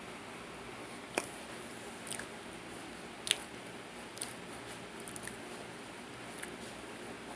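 Dry, crumbly powdery material crunching as it is eaten, in about six sharp, separate crunches over a faint steady hiss.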